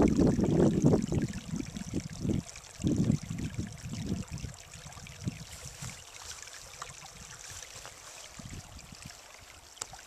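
Small spring-fed stream trickling over rocks. Wind buffets the microphone in low gusts for the first few seconds, then the steady trickle is left alone.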